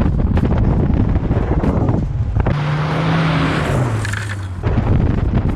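Car on the move: low rumble and buffeting, then for about two seconds a hissing rush with the engine note falling in pitch before the rumble returns.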